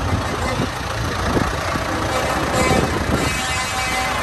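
Tractor engines running as the tractors drive slowly past, with a crowd talking behind them.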